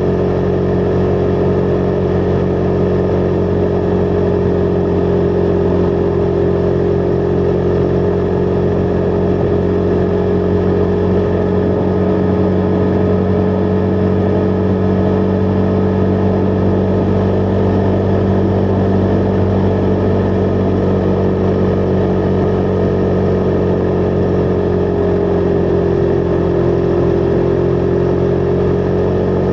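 Husqvarna Vitpilen 401's single-cylinder engine running at a steady cruise. Its pitch dips slightly near the end.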